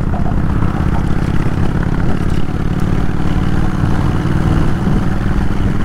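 Kawasaki VN 800 bobber's V-twin engine running steadily under way, with no revving up or down.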